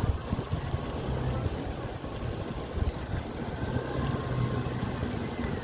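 Low rumble of street traffic with wind buffeting the microphone. A low engine hum swells at times, about a second in and again around four seconds.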